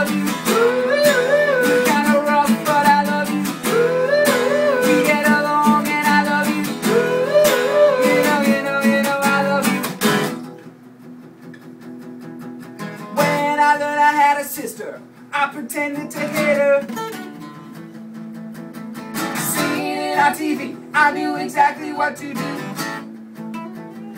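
Live acoustic band: two acoustic guitars strummed under a repeated wordless group vocal melody. About ten seconds in the music drops suddenly to quieter guitar, with the vocal line coming back in short phrases.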